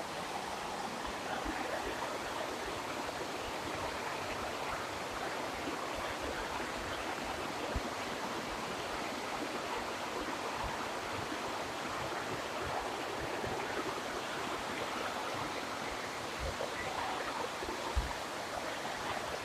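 Mountain waterfall and the streams that meet below it, a steady rushing of falling and flowing water. Two brief low thumps break in, a small one about eight seconds in and a louder one near the end.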